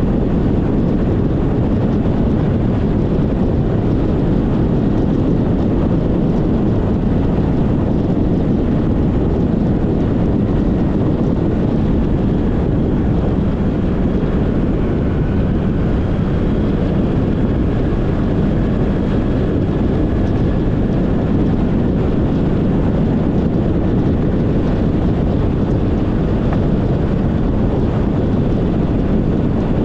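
Steady road noise from a moving vehicle on an expressway, with wind rushing over the action camera's microphone.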